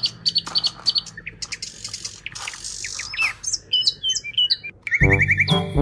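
Small birds chirping and tweeting in many short, quick calls, some rising and some falling in pitch. Near the end, loud music with brass cuts in.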